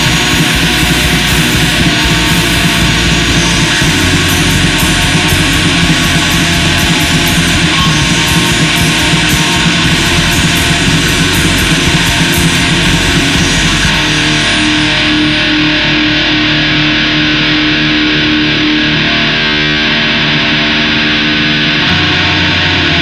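Black metal music with dense, loud distorted guitars and drums. About two-thirds of the way through, the bright high hiss drops away and a held guitar note rings on until near the end.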